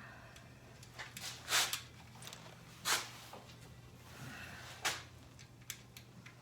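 Hand tools and small parts being handled while a ground wire is refitted: three sharp clacks and a scatter of lighter clicks, over a steady low hum.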